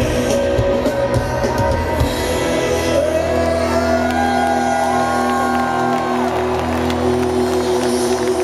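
A rock band playing live to a stadium crowd. A voice holds long notes that slide in pitch over sustained chords and bass, and the crowd whoops and cheers.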